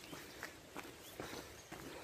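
Footsteps on a dirt forest track strewn with gravel and dry leaves, at a steady walking pace of about two to three steps a second.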